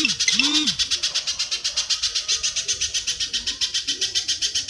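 A fast, even chattering call of high, scratchy notes, about ten a second, kept up without a break. It is the kind of call used in masteran training recordings. Two short low hooting notes come in the first second.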